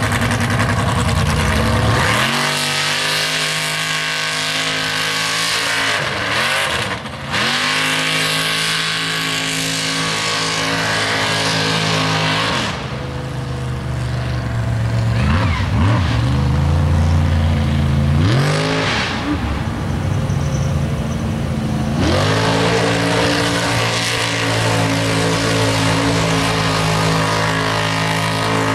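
Mega mud truck engine running hard at high revs, its pitch dropping and climbing back again several times as the throttle is lifted and reapplied through the mud pit.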